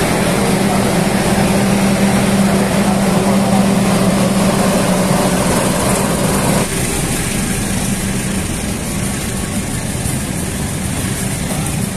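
Steady diesel drone of a passenger train's locomotive and power car moving slowly through a station, with a low even hum. About halfway through the sound changes abruptly to a quieter steady rumble of the train standing at the platform.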